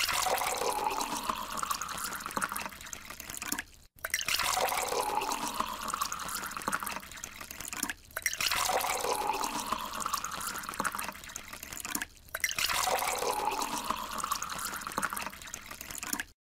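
Water poured into a bottle, four pours of about four seconds each with brief gaps between them, the gurgling pitch rising as the bottle fills.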